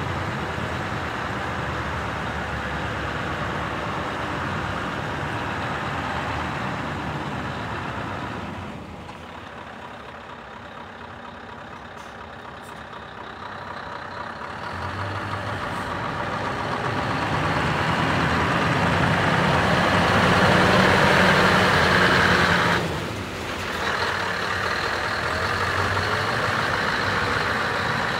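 Scania R500 truck's V8 diesel engine running as the heavy truck drives slowly over gravel. The engine sound drops back for a few seconds, then grows louder, pulling harder, before a brief dip and steady running again.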